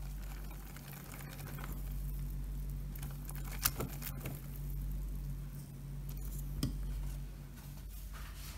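Hand whisk stirring thick cake batter in a glass bowl: a soft, wet patter that swells and fades with the strokes. Two sharp clinks of the whisk against the glass come about a third of the way in and again past the middle, over a steady low hum.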